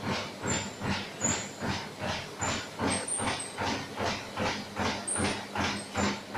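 Four-colour flexo printing and die-cutting machine for paper cup blanks running, with a steady rhythmic stroke about twice a second over a faint steady hum.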